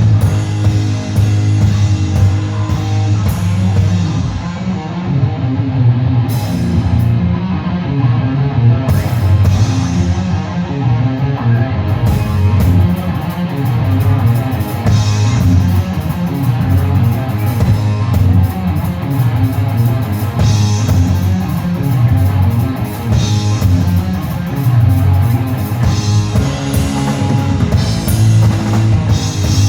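Live heavy metal band playing loud: distorted electric guitar over bass and a drum kit, with cymbal crashes every few seconds.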